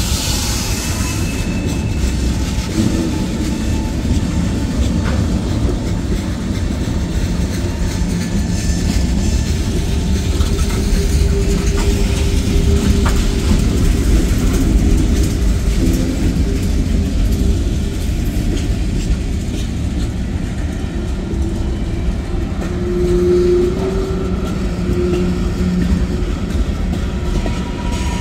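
Freight train's tank cars rolling past at close range: a steady rumble of steel wheels on the rails. A faint wheel squeal comes in about halfway through and again near the end.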